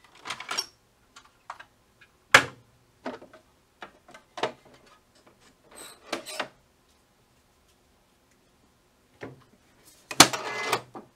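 Plastic clicks and knocks as the ribbon cartridge is pulled out of an HID Fargo DTC4250e ID card printer and the blank cards are taken from its input hopper, then a denser clatter near the end as the printer's front door is shut.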